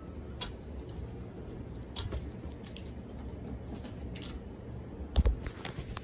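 Handling noises: scattered clicks and rustles over a steady low hum, with a louder knock about five seconds in.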